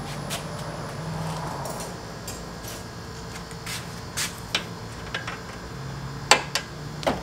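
Pliers clicking and tapping against metal fasteners at a car's front end, a few sharp clicks in the second half, the loudest about six seconds in, over a steady fan hum.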